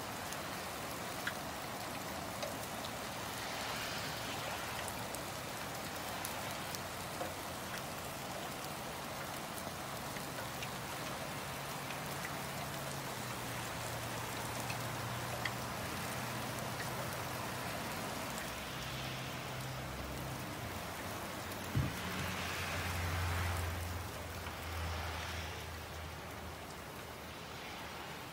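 Steady rain falling, with scattered sharp ticks of drops striking. A low hum runs through the middle, and there is a single thump about 22 seconds in.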